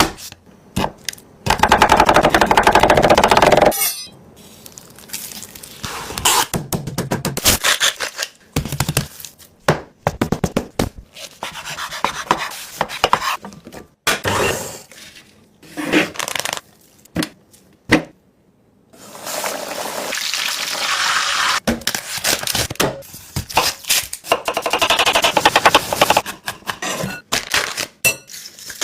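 Fried-chicken cooking sounds: a run of separate knocks, clicks and scrapes of utensils and food. There are two longer stretches of steady hissing noise, a loud one about two seconds in and another from about nineteen to twenty-seven seconds.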